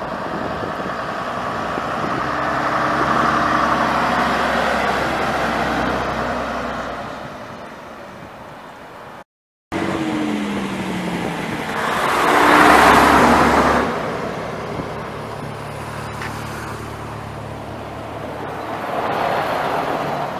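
Vintage London Transport buses' AEC diesel engines running past on the road: a red RT double-decker draws near and goes by in the first half, then a louder vehicle pass-by about two-thirds of the way through, and a green RF single-decker pulling past close near the end.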